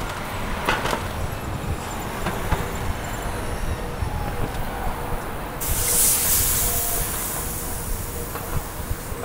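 City street traffic with a steady low rumble, and a sudden loud hiss about five and a half seconds in that slowly fades away.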